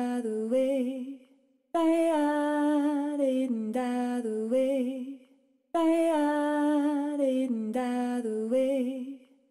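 Background music: one short wordless melodic phrase with a humming, voice-like tone, looped identically about every four seconds with a brief silence between repeats.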